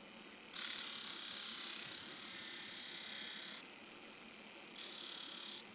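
Small 12-volt DC motor spinning an abrasive drum, with a small metal screw pressed against it: a harsh grinding hiss starts about half a second in and lasts about three seconds, then comes again briefly near the end as the screw is ground to a sharp point.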